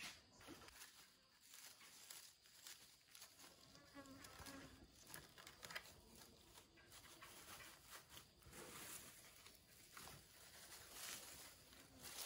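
Faint rustling and soft scattered crackles of dry palm fibre being pulled apart and packed into a small woven bamboo basket. An insect buzzes briefly about three to four seconds in.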